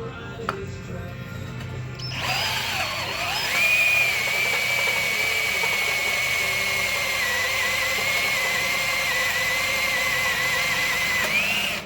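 Power drill running a Rotabroach annular cutter through steel. It spins up about two seconds in, then whines at a steady pitch that sags slightly while cutting, and stops just before the end as the cutter finishes the hole.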